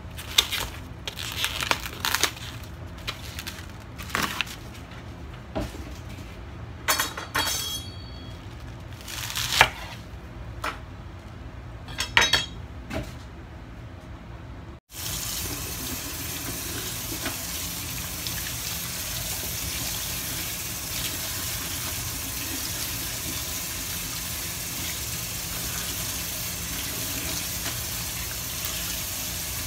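Scattered rustles, clicks and knocks as a bunch of chives is handled out of its plastic tray onto a wooden chopping block. From about halfway, tap water runs steadily into a stainless steel sink while the chives are rinsed under it.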